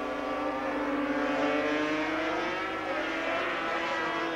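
A pack of 500cc two-stroke Grand Prix racing motorcycles running hard through a corner. Their engine notes are steady with a slight rise in pitch.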